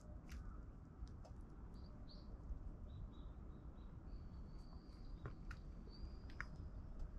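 Eurasian tree sparrow pecking and cracking seeds in a wooden feeder tray: scattered sharp little clicks. Faint thin, high bird chirps run through the middle and later part, over a low outdoor rumble.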